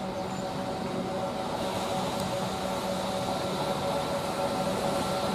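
EF63 electric locomotive rolling slowly: a steady mechanical hum and whir with several held tones from its running machinery, growing gradually louder as it draws near.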